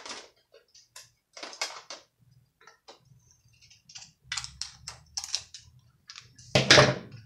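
Scissors snipping through craft paper, with paper being handled: a series of short crisp snips and rustles at irregular intervals, several in quick succession about four to five seconds in, then a louder knock near the end.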